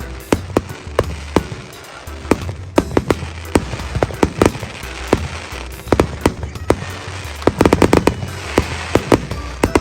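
Aerial fireworks going off: irregular sharp bangs, with a rapid run of bursts about three-quarters of the way through.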